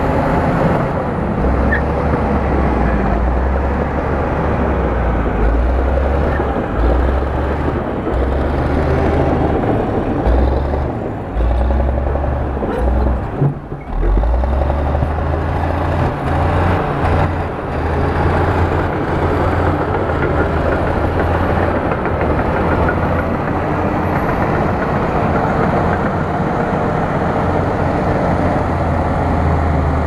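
Bulldozer's diesel engine running with a steady low rumble, dipping briefly about thirteen seconds in.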